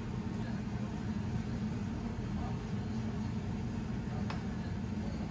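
A steady low kitchen hum, with a faint tap of a ladle against a stainless-steel soup pot about four seconds in.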